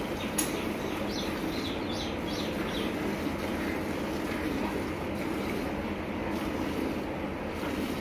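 Cow being hand-milked: streams of milk squirting into a steel pail over a steady rushing background noise, with a single sharp knock about half a second in.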